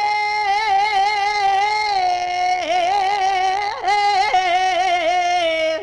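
Kavishari singing: Punjabi folk-ballad voices hold one long drawn-out note at the end of a line, with no instruments, wavering in ornaments and sinking a little in pitch toward the end.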